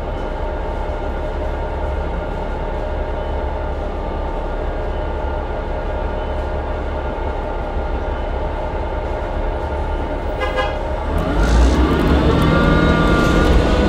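Interior sound of a New Flyer C40LF transit bus with a Cummins Westport ISL G natural-gas engine and Allison transmission. The engine runs steadily at first, then gets louder about eleven seconds in as the bus accelerates, with a whine that rises in pitch and then eases off.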